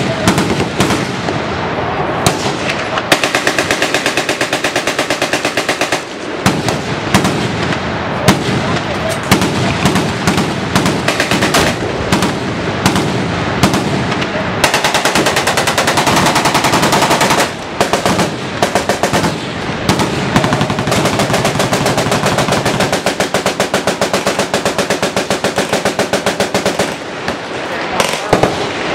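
Several machine guns firing at once from a firing line: long, overlapping bursts of rapid automatic fire that thicken and thin but never stop.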